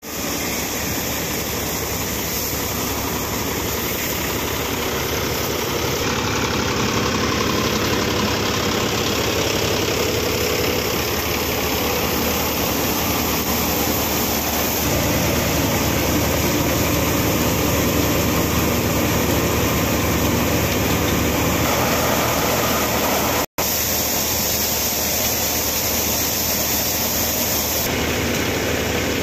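Mahindra tractor engine running steadily, driving a paddy thresher whose drum keeps up a continuous mechanical din as rice bundles are threshed. The sound cuts out for an instant about three-quarters of the way through.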